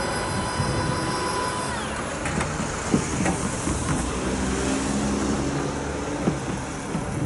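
A JNR Class DE10 diesel-hydraulic locomotive's engine running steadily as it pulls a train slowly along. There are several sharp knocks from the wheels on the track, the loudest about three seconds in.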